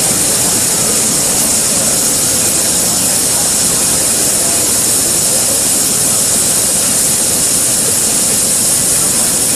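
Steady hiss of water spraying and streaming over a steel gear workpiece during small-hole EDM drilling, the dielectric water flushing the hole. Loud, even and high-pitched, with no change throughout.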